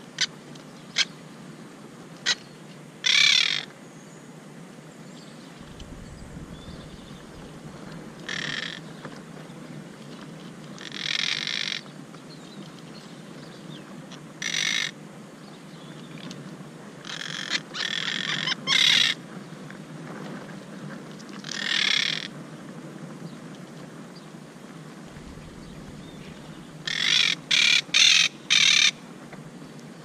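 Monk parakeets giving loud, harsh squawks in short bursts every few seconds, with a quick run of four calls near the end. A few sharp clicks come in the first couple of seconds.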